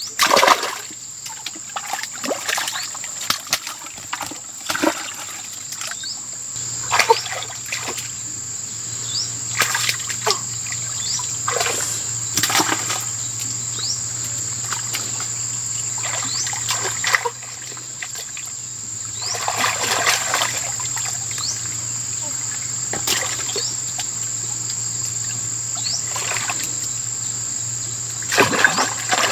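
Hands splashing and sloshing in shallow muddy water, groping among submerged tree roots, in irregular bursts of splashes. A steady high-pitched whine runs underneath.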